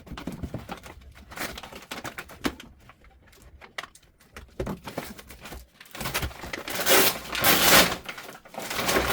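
Parcel packaging being handled and opened: scattered rustles and small knocks, then two louder long rustling swishes about seven seconds in.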